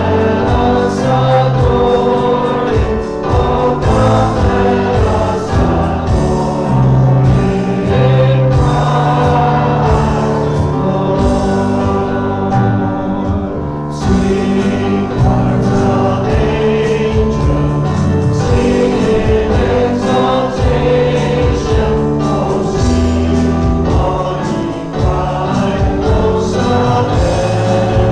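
Church congregation singing a hymn together, many voices on held notes.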